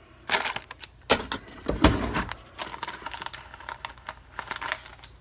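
An irregular run of small clicks, light knocks and rustles from a spice container being handled and opened, with two stronger knocks between one and two seconds in.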